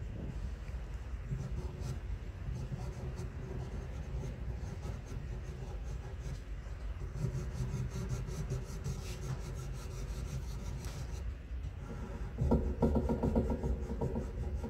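Fingers rubbing and smudging red-brown pastel into Strathmore charcoal paper, with the scratching strokes of a Faber-Castell pastel pencil in between; the rubbing gets louder near the end.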